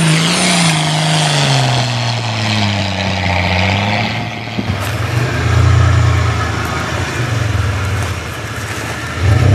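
A Nissan Patrol 160-series 4x4 engine revving hard under load on a steep dirt climb, its pitch falling over the first four seconds as it slows, with a dense hiss of tyres spraying dirt. After a cut, a Mitsubishi Pajero 3.0 V6 engine runs at a lower, steady note.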